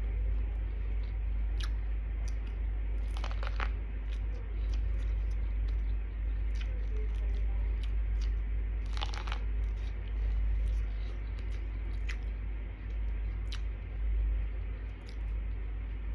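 Close-up biting and chewing of boiled corn on the cob: scattered crisp crunches as kernels are bitten off, with two longer, louder crunches about 3 and 9 seconds in, over a steady low hum.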